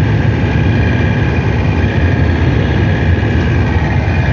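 Steady wind rush and engine and road noise from a vehicle driving at speed, heard at an open side window, loud and unbroken with a deep rumble.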